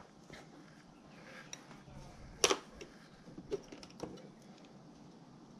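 Faint, scattered small clicks and taps as a soldering iron and thin wires are handled while a resistor lead is soldered, with one sharper click about two and a half seconds in.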